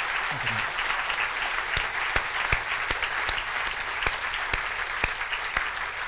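Audience applauding: dense, steady clapping that begins to thin out near the end.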